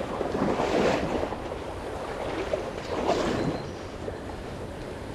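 High, fast-flowing river rushing, with wind buffeting the microphone and louder swells about one second in and again about three seconds in.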